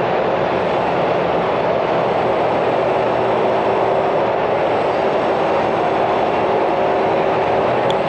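Steady traffic din at an airport terminal's curbside pickup and drop-off lanes: cars idling and creeping along under a large roofed canopy, an even rumbling wash with a few faint held tones in it.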